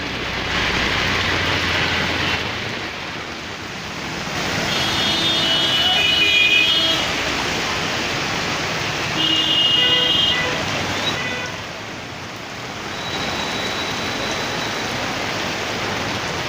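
Steady hiss of rain mixed with street traffic noise, with two short high horn toots about five and nine seconds in.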